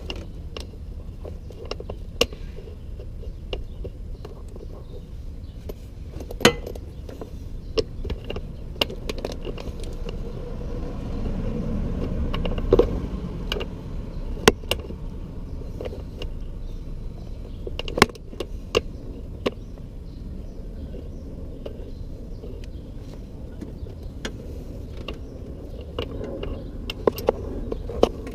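Scattered sharp metallic clicks and knocks, like tools and parts being handled, over a steady low rumble that swells a little around the middle.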